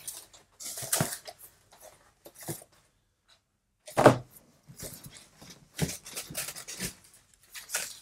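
Cardboard box and packing material being handled and opened: irregular rustling and scraping, with a loud knock about four seconds in.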